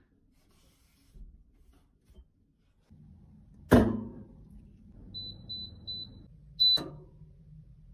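A glass jar knocks sharply as it is set down inside a small appliance. The appliance's control panel then gives three short high beeps as its buttons are pressed, followed by a louder beep with a click, over a low steady hum.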